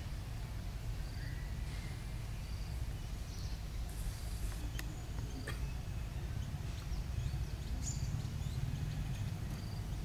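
Outdoor background of a wooded park: a steady low rumble with faint, short high-pitched chirps every second or so, and a few soft clicks.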